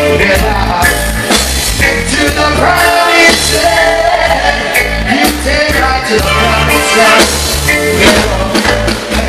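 Live reggae band playing, with a heavy, pulsing bass line and drum kit, and a male voice singing into a microphone over it.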